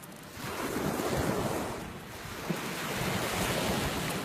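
Sea waves washing ashore, swelling and ebbing twice, with wind buffeting the microphone and a single brief knock midway.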